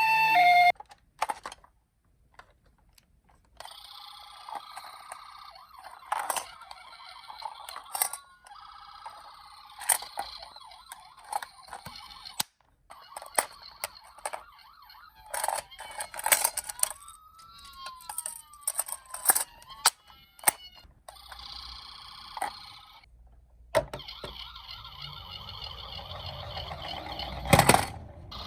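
Toy ambulance and police-car siren sounds, with sweeping up-and-down wails broken by short silent gaps. Sharp clicks and knocks of the toy cars rolling and bumping down a slope run through them.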